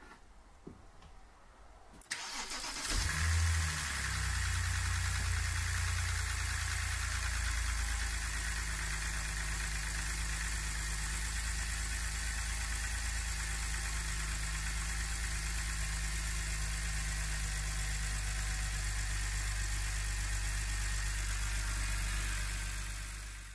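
BMW N52 3.0-litre straight-six engine starting after a valve stem seal replacement: a short crank about two seconds in, catching and briefly running faster, then settling into a steady idle.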